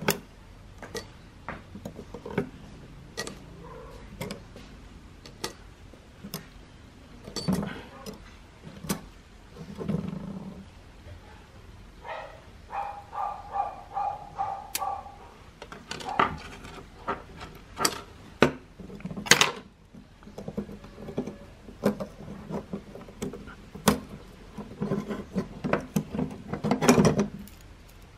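Small metal clicks and clinks of brass clock gears, plates and steel tools as an old clock movement is taken apart by hand, with duller knocks of parts being handled. In the middle comes a short run of rapid, pitched ticking.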